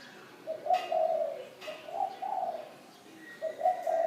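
A dove cooing in low, repeated phrases: one run of coos through the first half, and another starting near the end. A few faint higher bird chirps are heard alongside.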